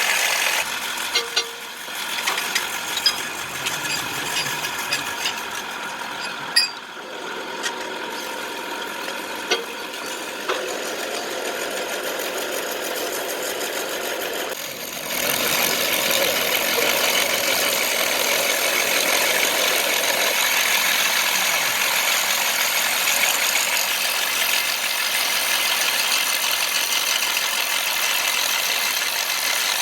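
A workshop power tool's electric motor running steadily with a whine, with scattered sharp clicks and taps in the first half. It gets louder and brighter from about halfway through.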